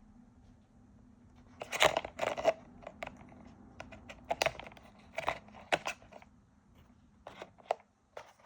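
Packaging and parts of a GoPro Hero 13 Black being handled during unboxing: an irregular series of short rustles, scrapes and clicks, loudest about two seconds in.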